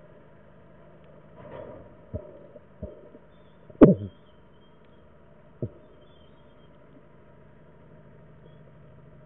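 Four dull knocks heard underwater, irregularly spaced over about three and a half seconds, the third much the loudest, over a low steady underwater hum.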